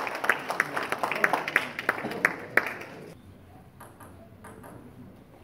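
Celluloid-type table tennis ball struck back and forth in a fast rally: sharp clicks of ball on bat and table, about two a second. A hall crowd's chatter underneath dies away about three seconds in, leaving fainter ball clicks.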